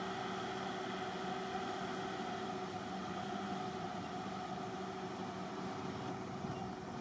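Steady engine hum, as of a motor idling, made of several steady tones over a haze of noise; one of the tones drops out about halfway through.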